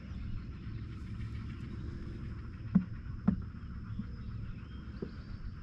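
Steady low rumble with a faint, steady high whine over it, and two short knocks about half a second apart near the middle.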